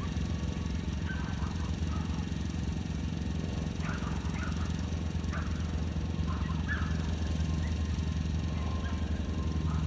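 A small engine running steadily at a constant pitch, heard from a distance, with faint, scattered distant voices.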